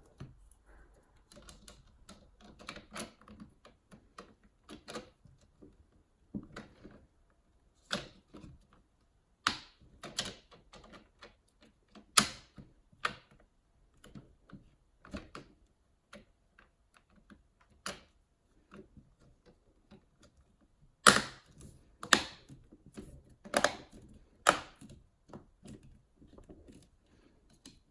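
Plastic diffuser panels being handled and pressed into a flexible 3D-printed plastic LED frame: irregular sharp plastic clicks and knocks, with a denser, louder run of snaps about three-quarters of the way through.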